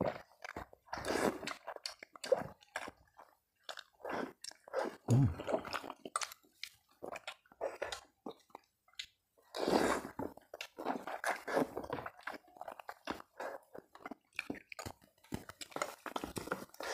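Close-miked eating of mie ayam (yellow chicken noodles): wet chewing with many short mouth clicks, and a few longer slurps as noodles are drawn into the mouth.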